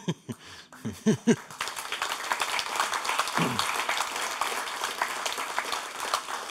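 Audience applauding, a dense patter of many hands clapping. It swells in about a second and a half in and thins out near the end.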